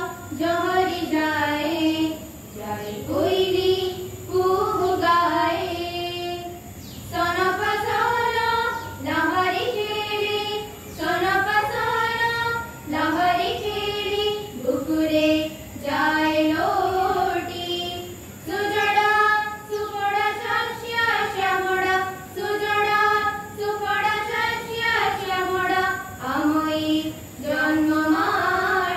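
Children singing a song in Odia into microphones, in phrases of a second or two with short breaths between them, with no instruments.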